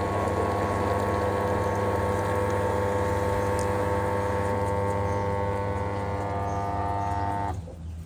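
Förster-Technik automatic milk feeder mixing a batch of lamb milk replacer: its motors run with a steady whine while powder drops and water pours into the mixing bowl. The whine and pour cut off suddenly near the end as the dosing finishes, leaving a low hum.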